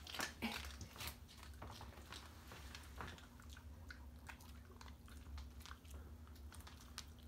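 A small long-haired dog crunching dry food pieces off a hard floor: faint, irregular crunches and clicks of chewing, several a second.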